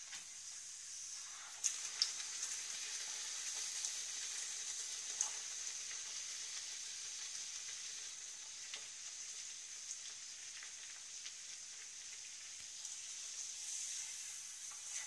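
A buckwheat-flour puri deep-frying in hot ghee, with a steady high sizzle. A few light clicks of the spatula against the pan come as the puri is flipped and turned.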